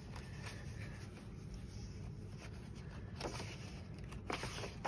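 Soft rustling of paper pages being handled and turned in a coloring book, with a few brief louder rustles in the second half.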